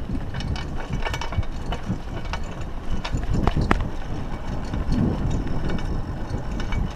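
Raleigh Ascent mountain bike rolling over a dirt trail: a steady rumble of tyres on the ground, with irregular clicks and rattles from the bike.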